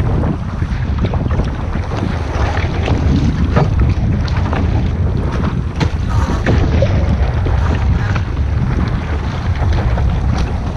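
Strong wind buffeting the microphone on a sailboat under way. A steady heavy rumble runs under repeated short splashes and knocks of water against the boat.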